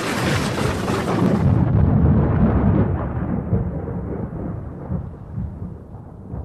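A thunder-like boom sound effect: a sudden hissing crash that thins out after about a second and a half, leaving a deep rumble that swells and then slowly dies away.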